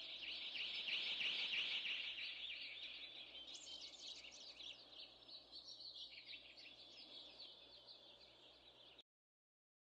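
Dense chorus of small birds chirping, fading slowly and then cutting off suddenly near the end.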